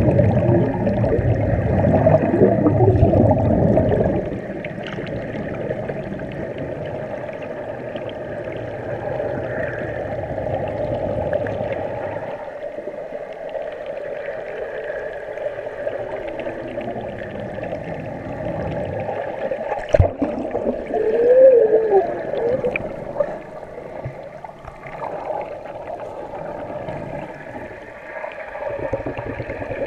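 Swimming pool heard underwater: a churning rush of bubbles and kicking water for the first four seconds or so, then a steady, muffled hum. About twenty seconds in there is a single sharp knock, followed by a short wavering tone, and the bubbling rumble builds again near the end.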